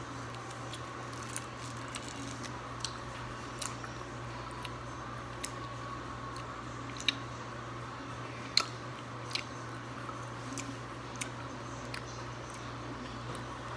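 A person chewing a soft, taffy-like Sweet Tart Chews candy with the mouth closed: scattered wet mouth clicks and squishes over a steady low background hum.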